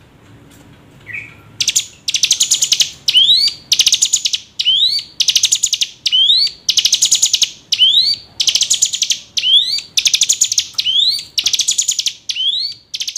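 Ciblek gunung, a prinia, singing. After a short pause at the start it repeats one phrase over and over: a dry, buzzy trill followed by a couple of quick rising whistled notes.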